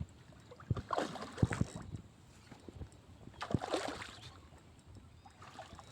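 Faint, intermittent splashing and sloshing of water in a few short bursts, from a hooked leervis (leerie) fighting at the surface as it is played in.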